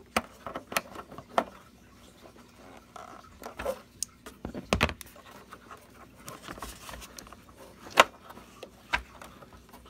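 Scattered plastic clicks and knocks from handling the taillight's bulb socket and wiring on the back of the black plastic taillight housing, as the amber bulb socket is worked loose with a twist; the sharpest click comes about eight seconds in.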